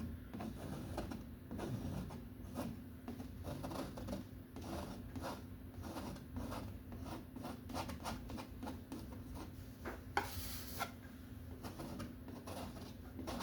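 Paint being worked onto a canvas: a run of short, irregular rubbing and scratching strokes.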